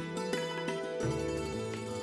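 Instrumental background music: plucked-string notes over a sustained low bass line.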